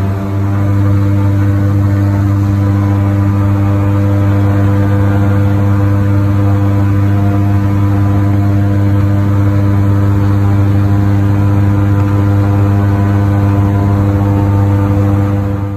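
Airboat engine and propeller running steadily at cruising speed, a loud, even drone.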